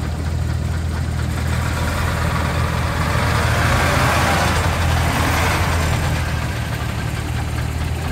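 IFA Robur truck's engine running steadily as the four-wheel-drive truck crawls over rutted mud, swelling louder for a couple of seconds in the middle.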